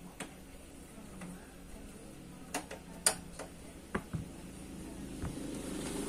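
Scattered light clicks and knocks of hands handling parts on an open power-amplifier chassis, about seven in all and uneven in spacing. A low steady noise swells near the end.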